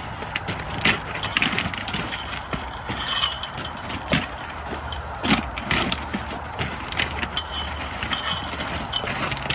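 Irregular ratchet-like clicking and metal clanking from the lifting gear as a deer is hoisted off the ground to hang from a scale, over a low steady hum.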